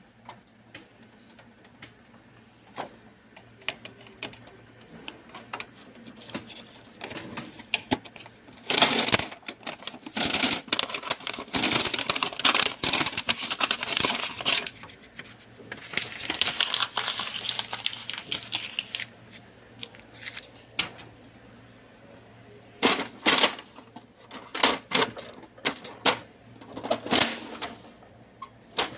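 Irregular clicks, knocks and clatter of hard objects being handled, with denser stretches of rattling and rustling from about nine to nineteen seconds in.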